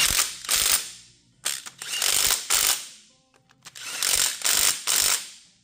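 A cover bolt on the dozer being run down tight with a wrench. There are three rattling runs of about a second each, with short pauses between them.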